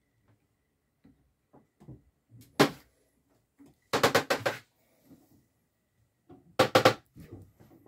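Short knocks and clicks in a small enclosed space. There is a single sharp knock about two and a half seconds in, a quick cluster of several about four seconds in, and a tight group of three near the end, with faint ticks between.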